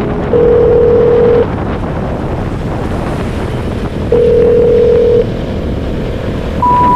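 Wind rushing over the camera microphone on a moving motorcycle. Two steady single-pitch tones of about a second each sound over it, one near the start and one about four seconds in.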